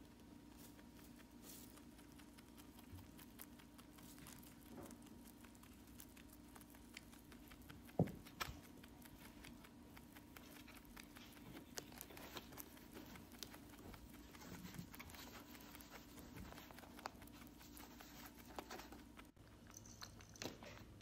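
Faint sound of a lop-eared pet rabbit chewing hay, many small crunching clicks, with one louder knock about eight seconds in, over a low steady hum.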